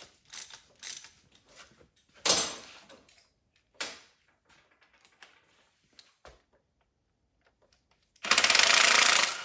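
Metal tools working a transmission's center support bolt: scattered clicks and a couple of sharp metal clanks, then about eight seconds in a power wrench runs in a fast, buzzing burst for just over a second.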